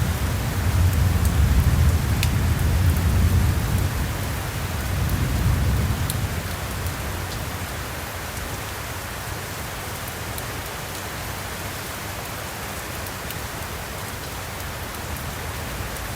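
Thunderstorm: steady heavy rain with a deep rolling thunder rumble that fades out about six seconds in, leaving rain alone, with a few scattered drip clicks.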